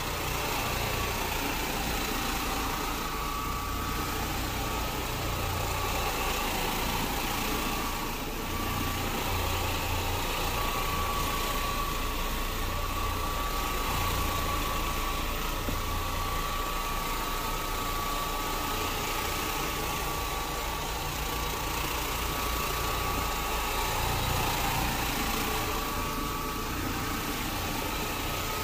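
Carpet steam-cleaning (hot water extraction) machine running steadily, a rushing vacuum noise with a thin steady whine over a low hum that comes and goes.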